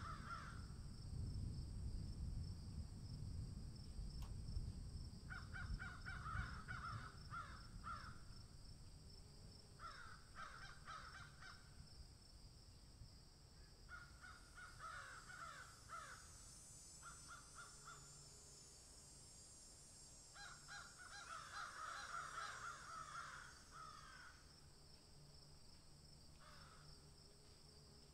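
Faint harsh, rapid chattering bird calls in bursts of one to three seconds, repeating every few seconds, over a steady high-pitched insect drone. A low rumble fades out in the first few seconds.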